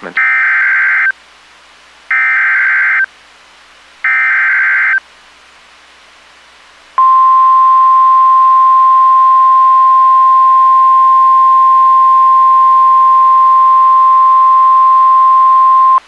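Emergency Alert System SAME header on NOAA Weather Radio: three one-second bursts of screeching data tones, two seconds apart. About seven seconds in, the steady 1050 Hz NWR warning alarm tone starts and holds for about nine seconds. It marks the start of a severe thunderstorm warning broadcast.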